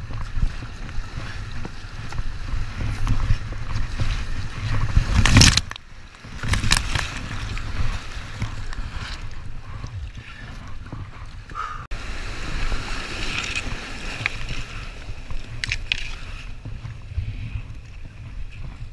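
Rushing floodwater around an inflatable kayak running small rapids, with a steady low rumble of wind and water on the microphone. Several loud splashes of water hit the boat, the biggest about five seconds in, with others soon after and near the end.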